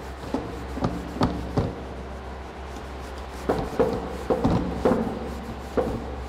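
Cloth wiping marker off a whiteboard: rubbing strokes with a string of short knocks, several in the first second and a half and more from about three and a half seconds on.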